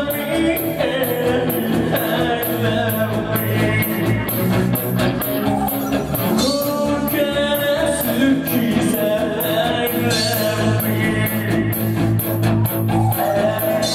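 Live rock band playing loudly: electric guitars, bass and drums with steady, evenly spaced cymbal strokes, under a singing voice.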